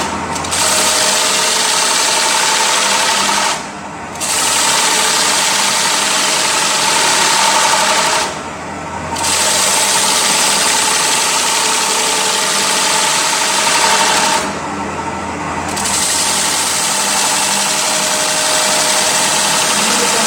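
CNC wood lathe running and cutting a large wooden bowl: a steady motor whine under a continuous cutting hiss, which drops briefly three times as the tool comes off the cut.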